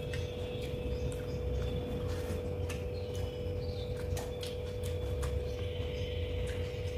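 Eating sounds: chewing and fingers working biryani rice, heard as scattered small clicks over a steady hum.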